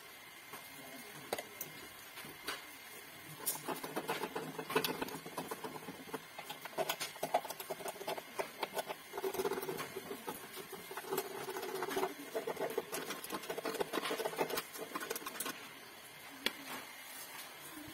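A thin metal wire scraping and poking in the burner of a Modena built-in gas hob, making rapid, irregular scratching with small clicks. It builds up a few seconds in and dies down near the end.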